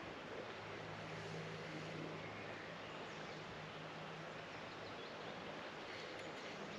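Steady outdoor background noise: an even hiss with a faint low hum and a few faint bird chirps.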